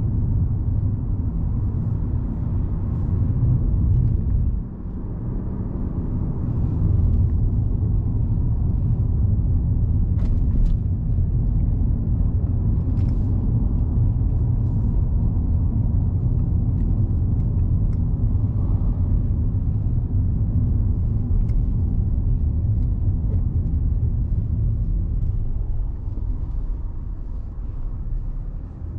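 Steady low rumble of a 2022 Mercedes-Benz C-Class 2.0-litre driving, heard inside the cabin: engine and road noise, briefly dropping in level about five seconds in.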